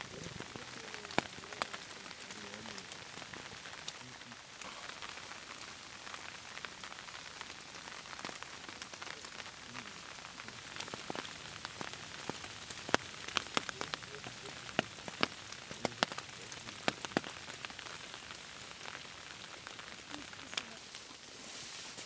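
Steady rain falling, with louder single drops ticking close by now and then, thickest around the middle.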